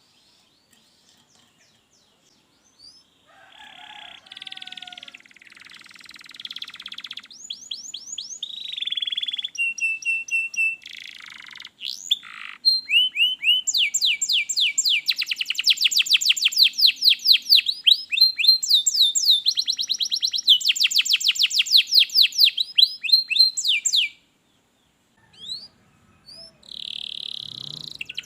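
Domestic canary singing: a varied song of whistled notes and trills that builds into long, fast, loud trills of rapidly repeated notes, breaking off briefly near the end before starting again. The first few seconds are nearly quiet.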